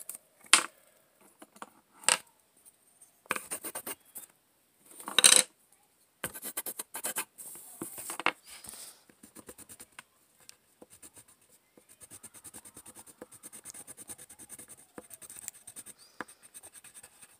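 Coloring on paper: rapid back-and-forth strokes scratching across the sheet, settling into a fast steady run in the second half. Several louder sharp knocks and rustles come in the first half, the loudest about five seconds in.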